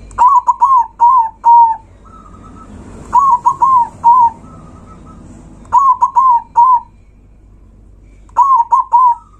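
Zebra dove (perkutut) cooing loudly. It gives four phrases a couple of seconds apart, each a quick stuttering run of four or five coo notes ending on a slightly longer one.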